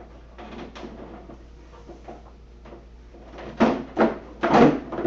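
Handling knocks and scrapes of a treadmill's plastic motor hood being worked loose, with faint clicks at first and several loud, short knocks near the end.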